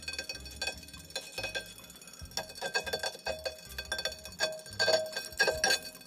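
Tacx Neo trainer motor brake making light metallic clinks and ticks as it turns, irregular sharp touches of metal on metal with a faint ringing tone. Such a noise can mean metal pieces or dust are stuck to the magnet in the motor brake.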